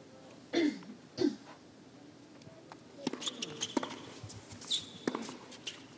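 Tennis point on a hard court: sharp racket-on-ball strikes roughly a second apart from about halfway through, with short high shoe squeaks between them. About half a second and a second in come two short throaty vocal sounds, like coughs.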